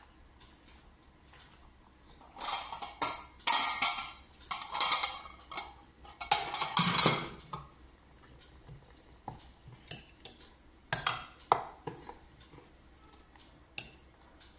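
Stainless steel cookware clattering: a run of loud clanks as a steel lid and pans are handled, then scattered sharp clinks of a steel ladle against the pot as the curry is stirred.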